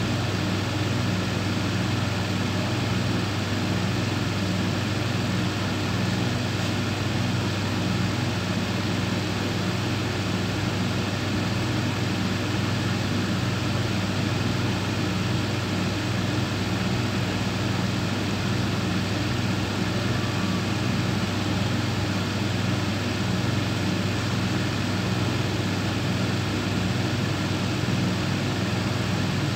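Industrial thicknesser running with a steady, unchanging low machine hum.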